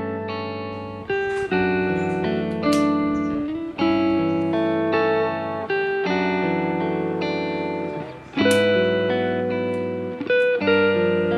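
Background music: guitar playing chords, with plucked notes changing about every second or two.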